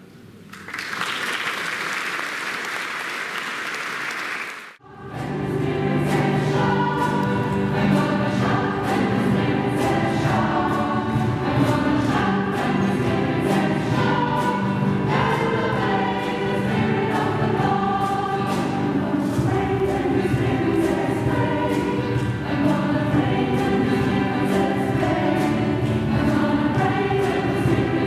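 Audience applauding for a few seconds, breaking off suddenly, then a choir singing a song with a steady beat.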